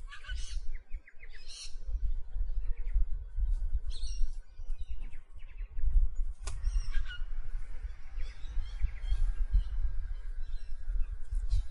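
Birds chirping and calling in short separate bursts: near the start, about a second and a half in, about four seconds in and about seven seconds in, with softer chirps after. Under them runs a constant, uneven low rumble.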